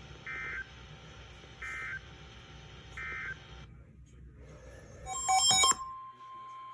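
NOAA Weather Radio broadcast: three short EAS end-of-message data bursts about 1.3 s apart over radio hiss and hum, then a brief drop-out. About five seconds in, a loud stepping electronic alarm sounds for under a second over the start of a steady single-pitch warning alert tone, the weather radio's 1050 Hz alarm, which holds to the end.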